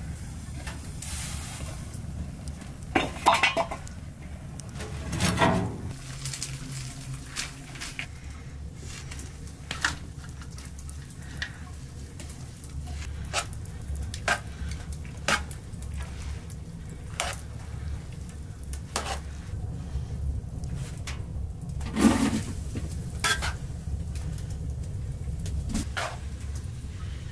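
Cooking clatter: metal utensils and pots knocking and clinking, scattered every second or two over a steady low background noise, with a few louder knocks about 3, 5 and 22 seconds in.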